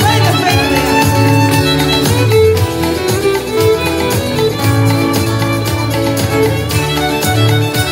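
Live rock band playing loudly: drum kit keeping a steady beat under electric guitar and bass.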